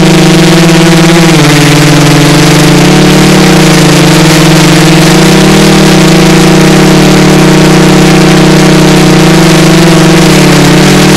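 Tarot 650 Sport quadcopter's brushless motors and propellers running with a steady, loud hum, picked up by the onboard camera. The pitch drops a little about a second in and rises again near the end as the motor speed changes.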